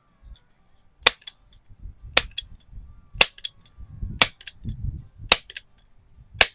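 Rochester Precision multi-pump air rifle being pumped: six strokes about a second apart, each ending in a sharp snap as the pump lever closes, with a low rush between them.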